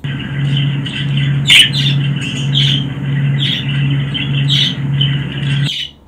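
Recorded budgerigar (parakeet) chatter played back: a run of chirps and squawks over a low hum that pulses about one and a half times a second, cutting out briefly near the end.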